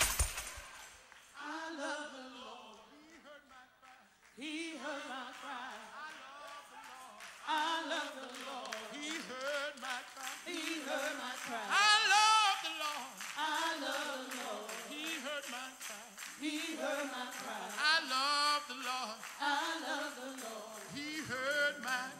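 The band's music cuts off in the first second. Slow, unaccompanied gospel singing follows, with a lead voice drawing out long notes with vibrato and other voices joining in.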